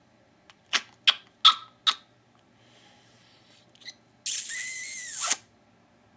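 Four sharp clicks in quick succession, about a third of a second apart, followed a couple of seconds later by a hissing noise lasting about a second, with a faint whistle in it that rises and then falls.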